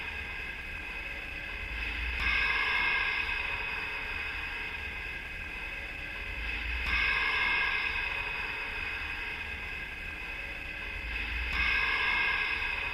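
An electronically processed sound-effect drone: several held high tones over a low hum. It swells louder three times, about every five seconds, like a repeating loop.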